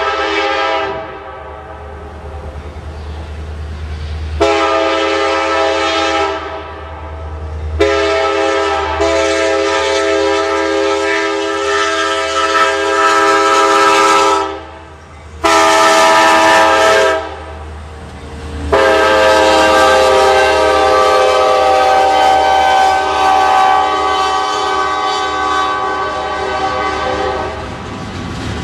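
CSX diesel freight locomotive's multi-note air horn sounding a series of blasts for a grade crossing: a blast ending about a second in, a long one, a longer one, a short one, then a long one held for about nine seconds as the locomotive reaches the crossing. A steady low rumble of the locomotive and train runs beneath.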